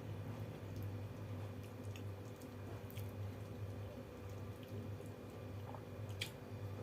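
Close-miked eating of water-soaked rice (panta bhat): chewing and small wet squishing clicks, scattered irregularly over a steady low hum.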